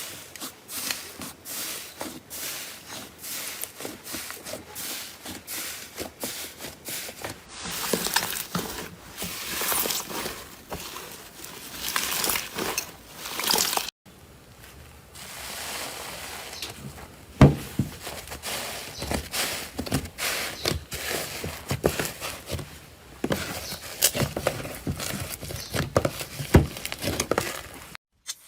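Slime being handled and squeezed: a dense run of sticky clicks, crackles and pops, broken off abruptly about halfway and again near the end.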